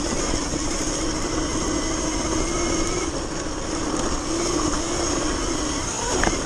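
Sur-Ron electric dirt bike riding over snow: the electric motor's steady whine, wavering slightly in pitch, over rushing wind and tyre noise. A short knock sounds near the end.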